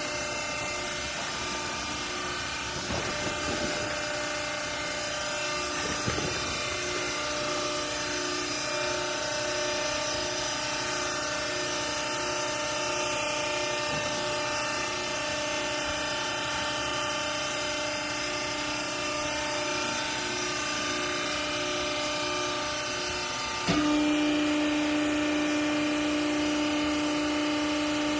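Double chamber textile baler's hydraulic pump and motor running with a steady hum, with a faint pulsing tone and a few light knocks. About 24 seconds in the sound steps up suddenly to a louder, steadier whine that holds.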